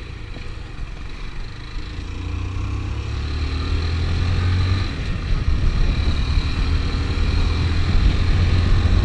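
Motorcycle engine running while the bike picks up speed, its pitch rising for a few seconds and growing louder, with wind rumbling on the microphone.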